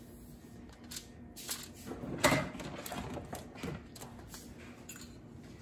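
Metal tongs clicking and scraping on a foil-lined pan while cooked chicken pieces are moved about: scattered light clicks and rustles, the loudest a little over two seconds in.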